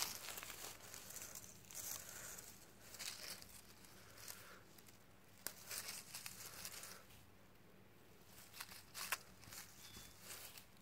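Faint rustling and crinkling of dry grass and dead leaves in short, irregular bursts, as a hand and a legless glass lizard move through them.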